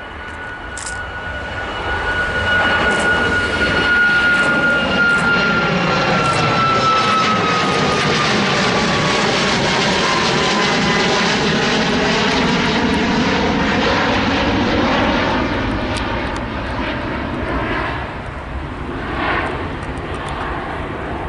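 Boeing 737 MAX 8 with CFM LEAP-1B engines at take-off thrust, climbing out past overhead. The jet noise swells over the first few seconds and eases off near the end, and a high engine whine falls steadily in pitch as the aircraft goes by.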